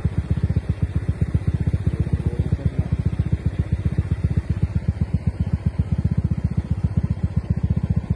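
Rapid, steady low thudding of a running machine, about ten beats a second.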